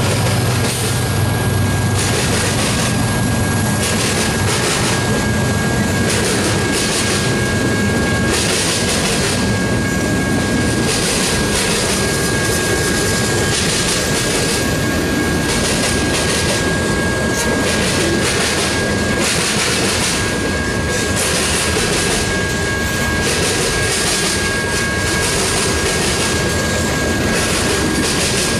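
Freight cars of a long train rolling past close by: steady noise of steel wheels on rail with repeated clicks as wheels cross rail joints, and a faint, thin, steady high tone throughout. The low engine hum of the passing trailing locomotive, a GE AC4400CW diesel, fades within the first second.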